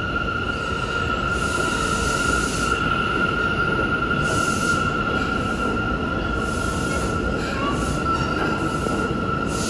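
New York City Subway train cars running past a platform at close range: a steady rumble of wheels on rail with a steady high-pitched squeal held throughout, and short bursts of hiss.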